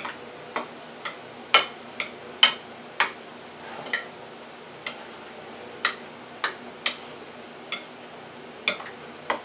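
A utensil clicking against a bowl, irregular sharp clinks about one or two a second, while rotini pasta with cream and grated cheese is stirred.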